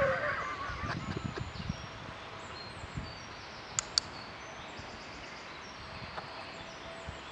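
Training clicker pressed, giving a sharp double click about four seconds in. It is the marker for the dog's chin resting on the hand. Faint birdsong runs behind it.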